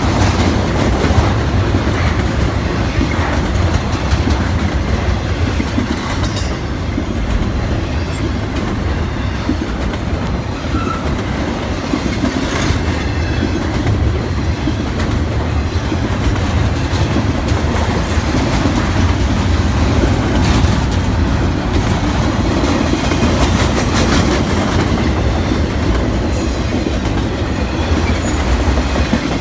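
Cars of a CSX intermodal freight train rolling past close by: a steady, loud rumble with the clickety-clack of wheels over the rail joints.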